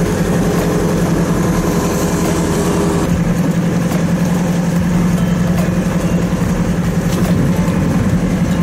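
Sailboat's engine running steadily as the boat motors under way, a continuous low pulsing drone.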